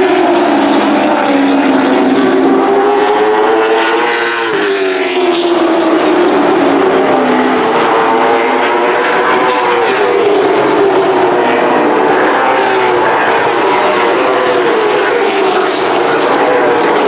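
Late model stock cars racing on a short oval track: several V8 engines running hard together, their pitch rising and falling through the laps, with a sharper drop and climb about four seconds in.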